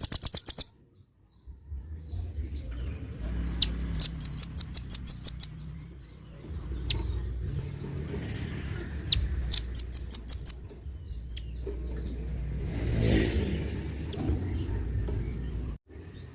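Velvet-fronted nuthatch giving its harsh call, a rapid series of high, chattering notes in three bursts: one right at the start, a longer one of about a dozen notes about four seconds in, and a shorter one about ten seconds in. A steady low rumble runs underneath.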